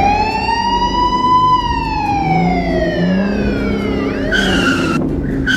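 Emergency vehicle siren in a slow wail, rising to a peak about a second and a half in and then falling away over the next few seconds. Near the end come two short steady tones.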